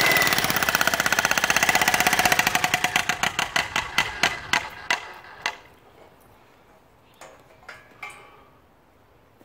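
Electric jackhammer (demolition hammer) chiselling a concrete footing with rapid, even blows; the blows then slow down and die away about five seconds in, and a few light knocks follow.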